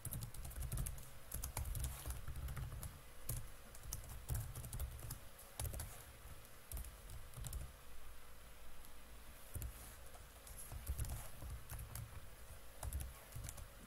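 Typing on a computer keyboard: irregular runs of keystroke clicks with short pauses as a line of code is entered.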